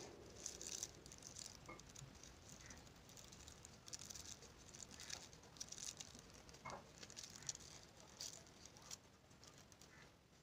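Faint, irregular rustling and light ticks of paper being handled, as a fringed white paper strip is wrapped around a rolled paper stick.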